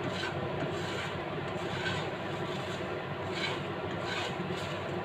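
A spatula stirring and scraping dried red chilies around a nonstick frying pan as they dry-roast: a dry rustling scrape in repeated strokes over a steady low hiss. The chilies are roasted through and ready for pounding.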